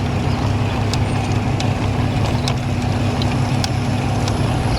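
A motor vehicle's engine running steadily close by at a road crossing, a low hum with a steady tone over it, with a few scattered light clicks.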